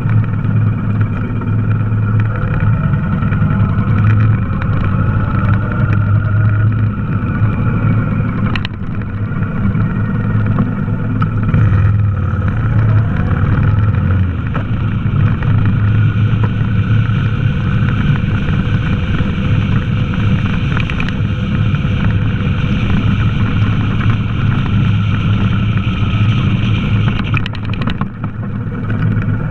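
Honda VTX 1300's V-twin engine running steadily as the motorcycle is ridden at street speed, with a brief tick about nine seconds in.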